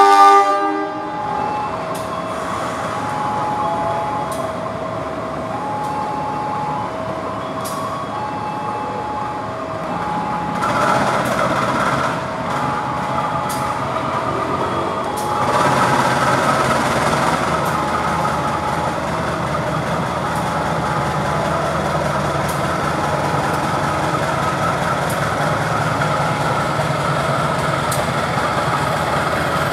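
Diesel locomotive engine running at a station platform and throttling up, louder about ten seconds in and again about fifteen seconds in. An electronic two-tone alarm sounds over it, alternating high and low beeps a little under a second each.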